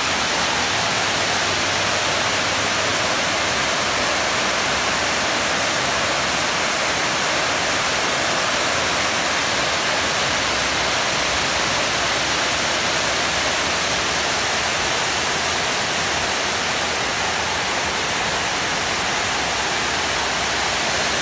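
Loud, steady rush of water pouring over a stone dam's spillway and crashing into the pool below.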